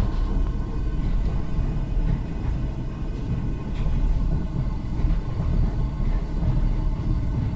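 Windmill grinding grain: the millstones and wooden gearing run with a steady, dense low rumble while meal pours from the chute into a sack.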